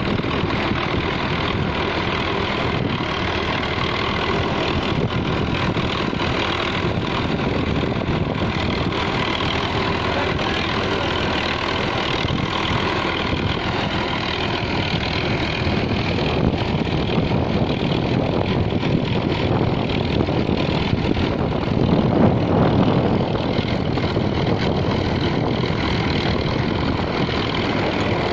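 Sonalika 60 tractor engine running steadily under load as it pulls a pipeline trencher through hard, dry soil, mixed with the churn of the digging machine. Briefly a little louder about three-quarters of the way through.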